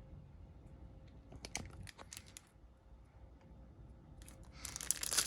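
A few faint clicks and taps of handling, then near the end a foil trading-card pack crinkling loudly as it is torn open.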